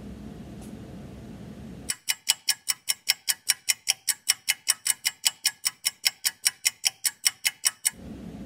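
Quiet room tone, then about two seconds in a clock ticking, sharp and even at about five ticks a second, which stops suddenly about six seconds later.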